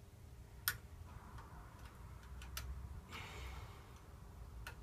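Curtain pick working the levers of a 5-lever mortice lock: a few sharp, separate metallic clicks, with a brief scrape about three seconds in, as the levers are set.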